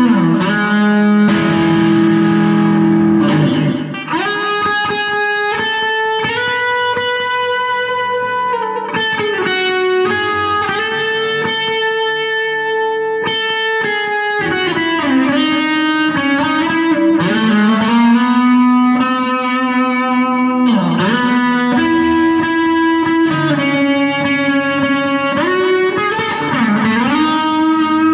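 Electric guitar with effects and light distortion playing a slow instrumental melody of long held notes, with bends and slides between them.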